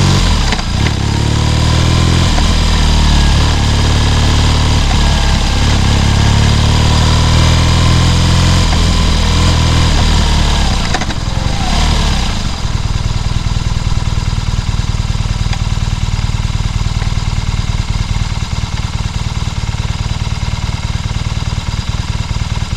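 BMW R nineT's air/oil-cooled boxer twin running at low speed, its pitch rising and falling, then settling into a steady idle about twelve seconds in.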